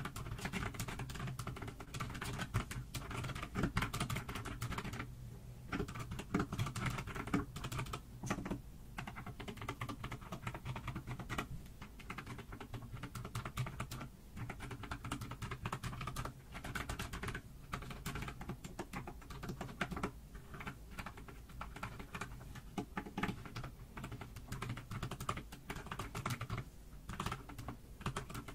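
Rapid, irregular tapping clicks like typing, continuing throughout, over a low steady hum.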